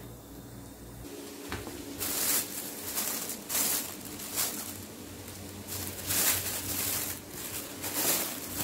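Thin plastic carrier bags holding cassava roots rustling and crinkling as they are handled, in a series of irregular bursts.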